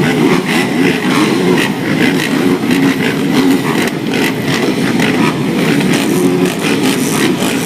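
Motocross motorcycle engines revving up and down as the bikes race, the pitch rising and falling over and over.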